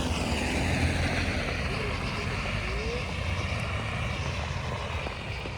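A car driving, with a steady low engine rumble and tyre and road noise that eases slightly near the end.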